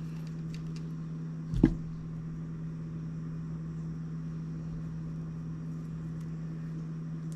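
Fishing tackle being handled while a deep drop rig is clipped together: a few faint small clicks and a single sharp knock about one and a half seconds in, over a steady low hum.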